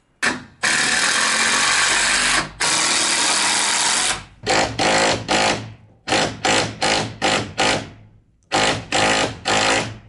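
Power drill driving screws into wood lumber: two long runs of a couple of seconds each, then runs of short trigger bursts, about three a second, as the screws are seated.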